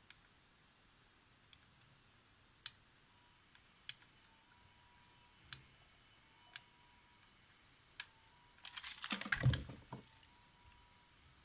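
Small hand tools clicking and tapping on a camera circuit board during desoldering of a capacitor: sharp single clicks every second or so, then a short burst of scraping and rattling about nine seconds in.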